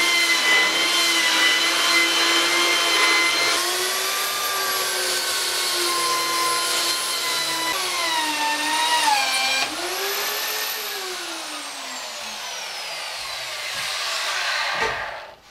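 Handheld electric sander running against a wooden skateboard deck, its motor whine steady at first, then dipping in pitch under changing pressure. Over the last few seconds the whine glides steadily down in pitch, and the sander stops just before the end.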